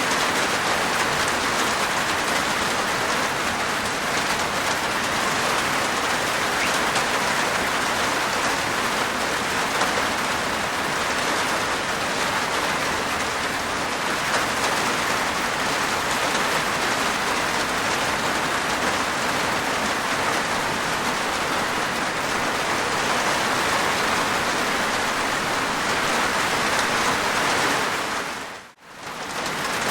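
Steady heavy rain pattering on a rooftop, a dense even hiss of raindrops. Near the end it fades out for under a second and comes straight back.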